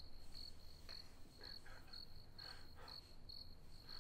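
Faint cricket chirping, a short high chirp about twice a second: the stock 'silence' sound effect, here meaning that the mittened cat's steps make no sound.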